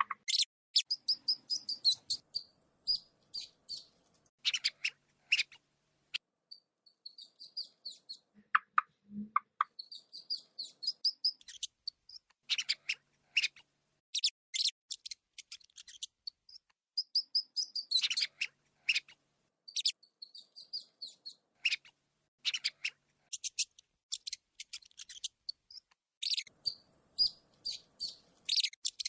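Rats squeaking: rapid runs of sharp, high-pitched squeaks, broken by short pauses.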